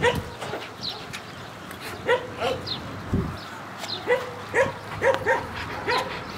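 A dog barking in a run of short, sharp barks, about two a second, after a brief gap early on.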